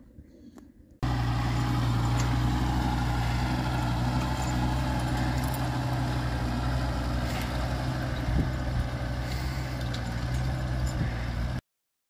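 An engine running steadily at an even speed, with a deep, constant hum. It starts suddenly about a second in and cuts off abruptly shortly before the end.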